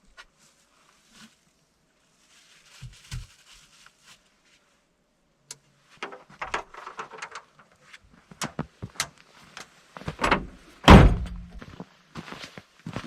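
Irregular knocks, clicks and thumps, with one heavy thump about eleven seconds in.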